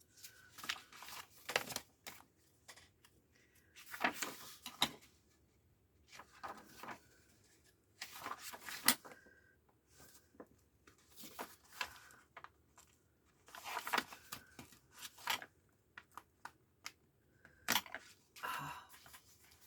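Paper rustling and crackling in irregular short bursts as the binding of a glued and sewn book is worked apart by hand, its threads being broken and its pages pulled.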